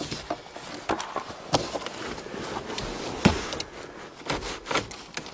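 Irregular knocks, clicks and scraping from something being handled, the loudest knock about three seconds in; no engine is running.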